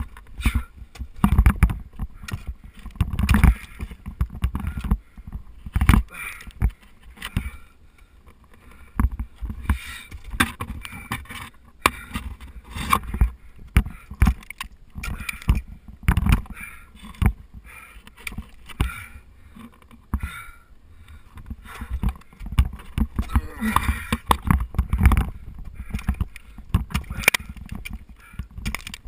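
Ice axe picks being swung into a frozen waterfall's ice, in irregular thuds and knocks, sometimes several a second with short pauses between.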